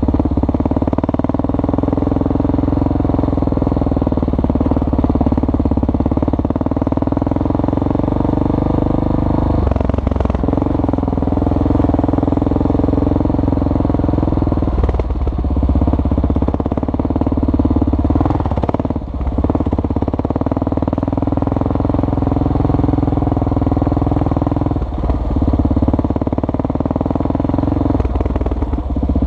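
Kawasaki KLR650's single-cylinder four-stroke engine running steadily under way off-road, its note briefly dipping and shifting about five times.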